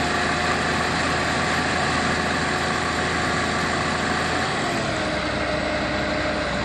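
A steady engine sound like a heavy vehicle idling. Its pitch dips about two-thirds of the way through.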